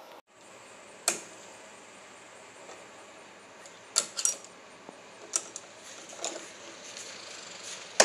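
Sharp metal clicks and clinks of locking pliers being worked against a riding lawn mower's engine parts. The clicks come one at a time: one about a second in, a quick group around four seconds, a few more after that, and the loudest at the very end.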